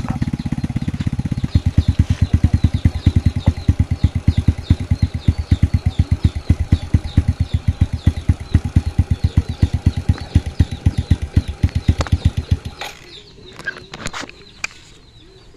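Suzuki Smash 115's single-cylinder four-stroke engine idling with a fast, even beat, run to push oil through a newly fitted oil cooler. It shuts off near the end, followed by a few light knocks.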